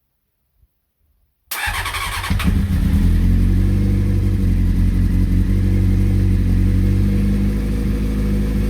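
Honda CBR600F's carburetted inline-four engine cranked by its starter motor for about a second, then catching and running steadily on half choke: its first start after being laid up.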